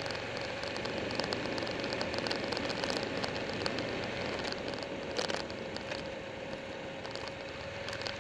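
Wind and road noise on a camera mounted on a Buell 1125R motorcycle riding at speed, a steady rushing with small crackles from the buffeted mount and microphone. A brief knock about five seconds in.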